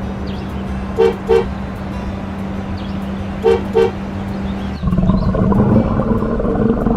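Cartoon car horn sounding a double beep-beep, then another double beep about two and a half seconds later, over a steady hum. A louder, busier mix of sound comes in just before five seconds in.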